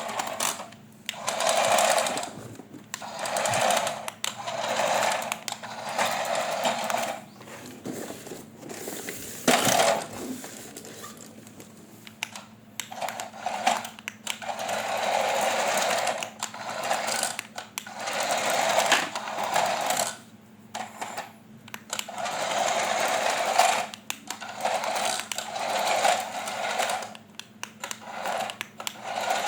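Small electric motor of a battery-powered toy whirring in repeated bursts that start and stop every second or two. There is one sharp click about a third of the way through.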